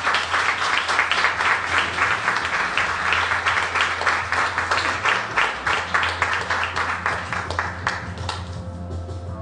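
Audience applauding, the clapping dying away about eight and a half seconds in, over a steady low hum.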